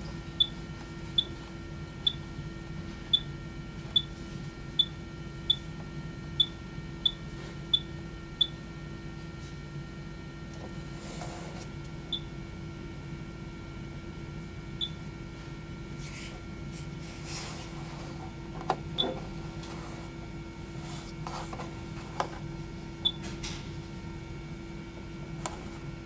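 Summit X-ray control panel keys beeping as they are pressed: a quick run of about a dozen short high beeps, then single beeps every few seconds. A steady electrical hum runs underneath, with a few clicks of the buttons.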